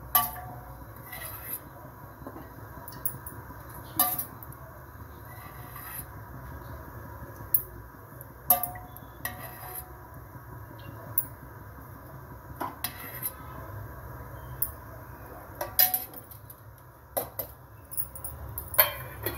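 Sharp metal clinks of a spoon against an oil container and a nonstick kadai as oil is spooned into the pan, a dozen or so at irregular moments, over a steady low hum.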